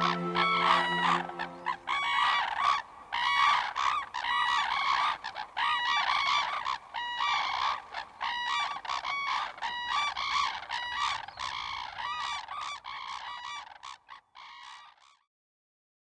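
A flock of red-crowned cranes calling, with many loud, repeated calls overlapping, given with bills pointed skyward in unison-call display. The calling grows fainter and stops near the end.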